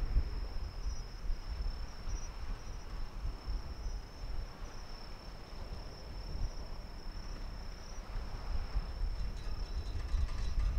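Crickets trilling: one steady high, unbroken note over a low rumble.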